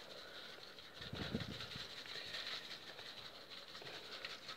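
Faint light taps and rustle of a plastic shaker bottle being shaken over a cake, dusting it with icing sugar.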